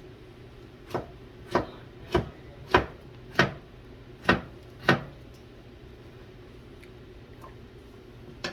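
A knife chopping on a cutting board: seven sharp knocks about every half second, stopping about five seconds in.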